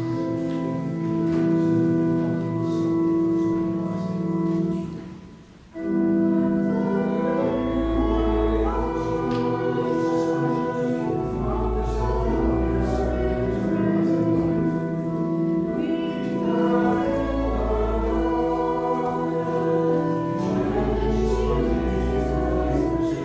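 Church organ playing with voices singing a hymn, with deep bass notes under held chords. The music dies away briefly about five seconds in and starts again abruptly about a second later.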